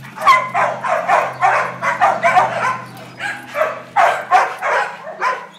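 A dog barking in quick runs of short barks, with a brief lull about halfway through.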